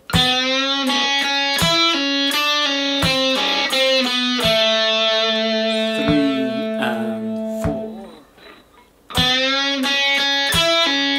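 Electric guitar playing a lead phrase in F-sharp minor pentatonic: a run of picked notes with pull-offs, then a long held note that dies away about eight seconds in. The phrase starts again about a second later.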